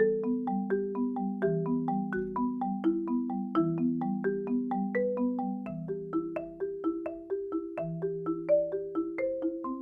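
Marimba played with mallets in a steady flowing line, about four or five notes a second, the low bars ringing on beneath the higher notes. It is picked up raw by a microphone under the bars, with no EQ or compression.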